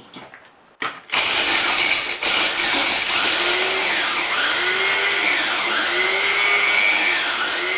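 Small, old, low-powered electric food chopper grinding rusks into breadcrumbs. It starts about a second in, just after a click, and runs with a whine whose pitch dips and rises as the pieces shift under the blade.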